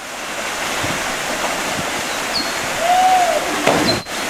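Waterfall's water pouring down, a steady rushing noise, with a short whistle-like note that rises and falls about three seconds in.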